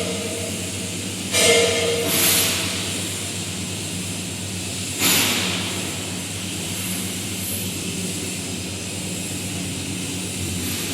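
Vertical turning lathe running with a steady mechanical hum while machining the large steel housing of a Francis turbine. About a second and a half in there is a brief louder whine, and short hissing surges come near two and five seconds.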